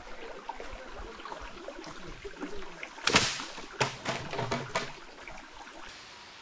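Footsteps crunching and rustling over forest leaf litter, with a sharp, louder crunch or knock about three seconds in and a few more strong steps after it.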